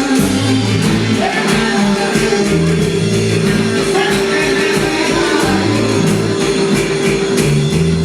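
Live band playing old-school American roots rock and roll, with a singer's voice over the band.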